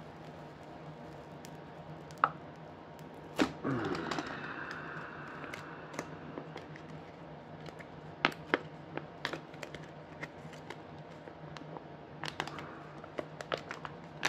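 Thin aluminium-backed leather skin being peeled from a Polaroid SX-70 and handled. A sharp click comes about two seconds in, then a crackling tear followed by a rasping peel. After that come scattered small crinkles and clicks over a low steady hum.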